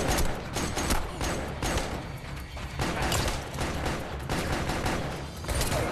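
Gunfire in a film shootout: many shots in irregular bursts, the loudest right at the start.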